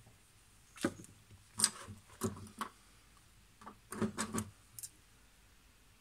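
Handling noise on a worktable: a scatter of short clicks and light knocks as small tools and parts are put down and picked up, in two bunches separated by a brief pause.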